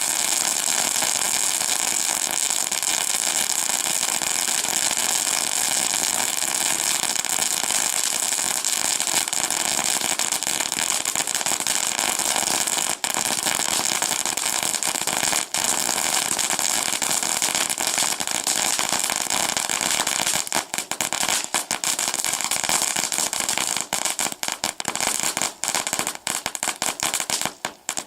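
Four Memory Storm fireworks joined together, burning as one long continuous hiss laced with crackling. About 20 seconds in the hiss starts to break up into a dense run of separate crackles.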